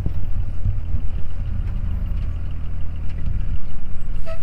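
A vehicle engine running steadily, a low, even drone.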